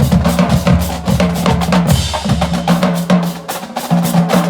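Music with a fast, heavy drum beat over a deep bass line.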